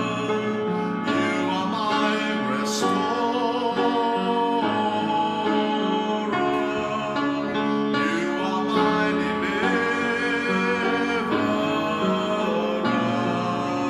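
Slow worship music with instruments and a sung melody.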